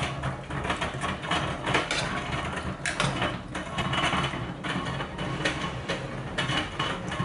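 Rice cooker running with a steady rumbling, rattling noise, with scattered clinks and scrapes of a spoon against a steel saucepan as a stew is stirred.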